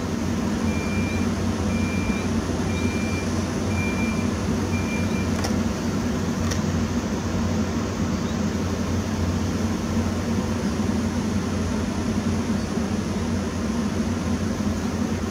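PKP EP07 electric locomotive standing at the platform with its auxiliary machinery running: a steady low hum. Five short high beeps, about one a second, sound in the first five seconds, followed by two faint clicks.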